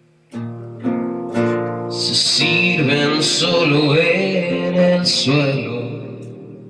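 Acoustic guitar strummed, a few chords in the first second and a half, then joined about two seconds in by a man's voice singing over it. The sound fades away toward the end.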